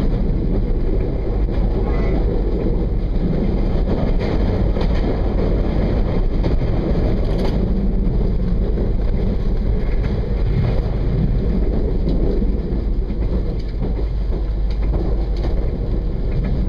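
Regional train running along the track, heard from on board: a steady low rumble of wheels and rolling noise.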